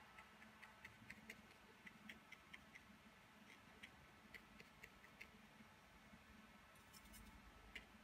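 Near silence, with faint, irregularly spaced soft ticks of a watercolour brush dabbing paint onto paper, over a low steady room hum.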